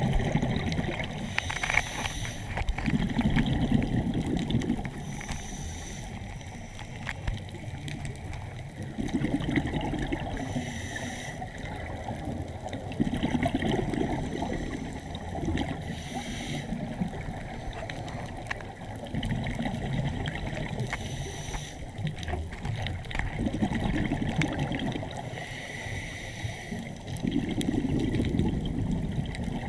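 Water sloshing and gurgling, swelling in slow surges every four to five seconds with short hissing sounds in between.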